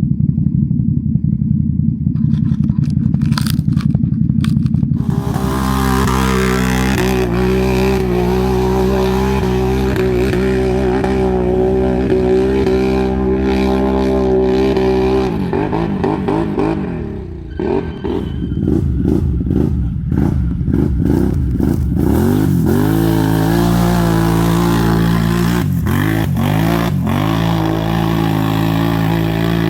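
ATV engine running hard under load, a low rumble at first and then a steady engine note from about five seconds in. Its pitch falls and rises with the throttle about halfway through, with a brief drop in loudness, then holds steady again with a few more swings near the end.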